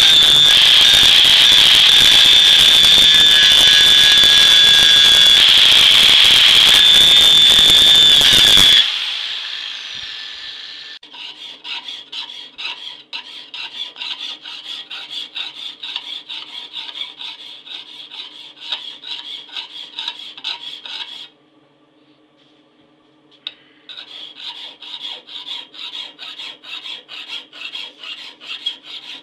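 Angle grinder grinding a steel knife blade with a steady high whine. It stops about nine seconds in and spins down. Then a hand file rasps along the blade in quick, even strokes, pausing for about two seconds before the filing resumes.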